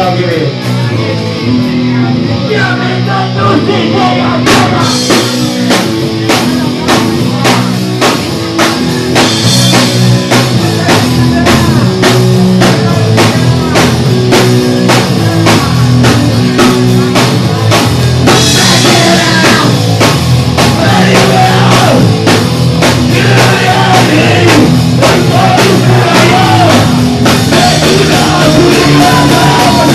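Fast, loud punk rock: driving drums, distorted guitars and shouted singing, as from a live band.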